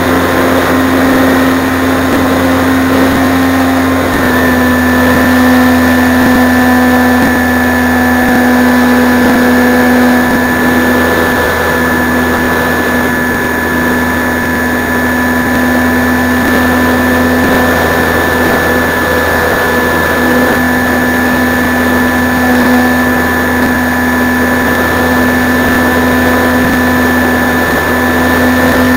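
Motor and propeller of a 1/5-scale Art-Tech Cessna 182 RC plane heard from on board in flight: a loud, steady whine, its pitch shifting slightly about four seconds in.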